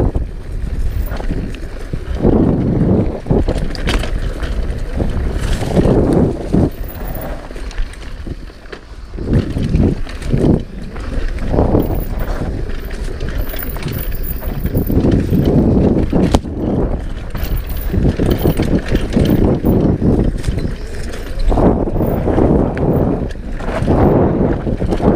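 Downhill mountain bike ridden fast over a dirt forest trail: a rushing, surging rumble of air on the camera microphone and tyres on dirt, with the bike rattling and a few sharp knocks as it hits bumps.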